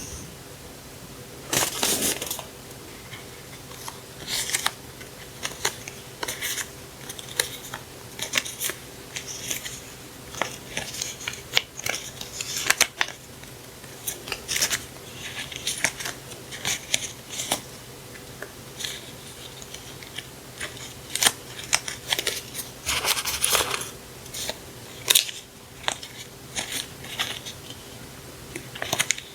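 Paper and plastic packaging and stationery being handled and unwrapped by hand: irregular rustles, crinkles and small clicks, with a faint steady hum underneath.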